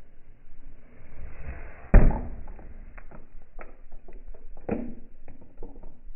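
A ball hitting a remote control car's plastic controller: one hard thump about two seconds in, a run of lighter knocks and clatters, then a second hard hit near the end.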